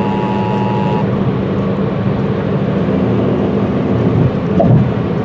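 The EAS attention signal, a steady two-tone beep of 853 and 960 Hz, cuts off about a second in. Under and after it runs a loud, steady noise with a low hum.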